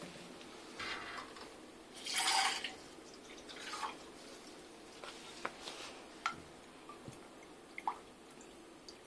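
Liquid pouring and splashing in three short spurts, the second the loudest, followed by a few light clicks and drips of glassware.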